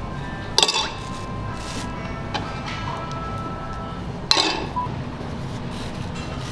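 Kitchenware clinking: two sharp clinks of dishes or metal utensils, each leaving a brief ringing tone, the first under a second in and the second past the middle, over background music.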